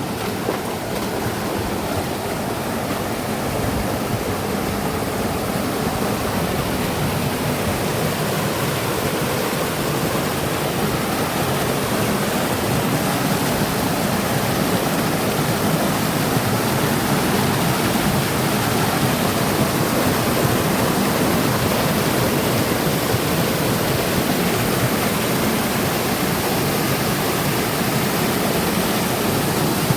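River water rushing steadily over rocks at a small cascade, with no breaks; it grows a little louder over the first few seconds, then holds level.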